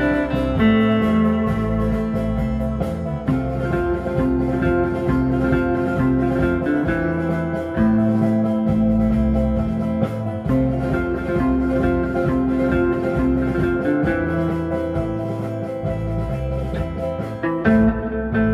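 Music led by guitar, with notes and a bass line that change every second or so.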